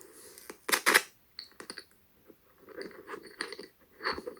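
Handling noise from a microphone cable being unplugged and an extension cable plugged in: clicks and rustles close to the mic, loudest about a second in, followed by softer scattered taps and scrapes.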